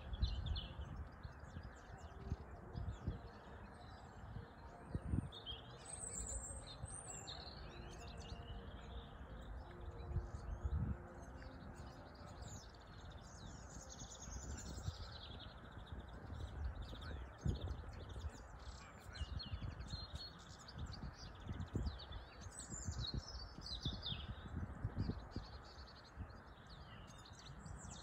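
A flock of goldfinches singing in the treetops: many quick high twittering chirps and trills, overlapping and continuous, with other birds mixed in. Low rumbles and thuds sound underneath.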